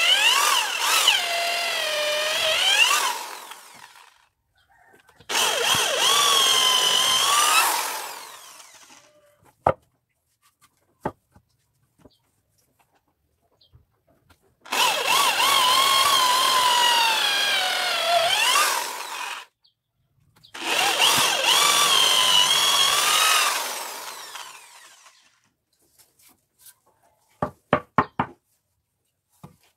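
Handheld electric power tool cutting into teak in four runs of about four seconds each, its motor whine dipping and recovering in pitch as it bites into the wood. A few sharp taps come near the end.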